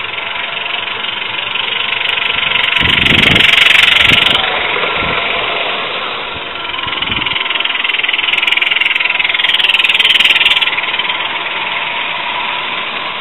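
Gauge 1 live steam locomotive and its train running past close by on the track. The sound swells twice, loudest about four seconds in and again about ten seconds in, with a few low thumps in the first half.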